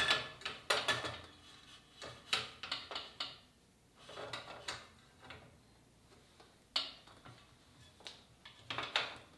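Irregular metallic clicks, knocks and clatter of a bicycle rear wheel with a Rohloff hub and disc rotor being handled and fitted into the frame, in several short spells with quiet gaps between.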